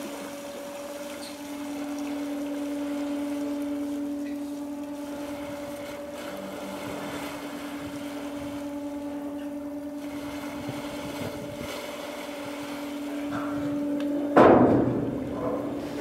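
Ship's machinery giving a steady low hum, over a rush of water along the hull. Near the end the hum cuts off and a sudden, much louder rushing noise takes over.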